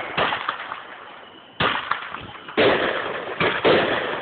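Fireworks bursting: four sharp booms roughly a second apart, starting just over a second in, each followed by a long fading echo.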